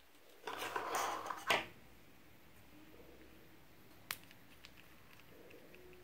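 Quiet handling of small plastic objects: about a second of rustling and scraping near the start ending in a sharp click, then another single sharp click about four seconds in as a small plastic heart-shaped nail polish bottle is picked up and turned in the fingers.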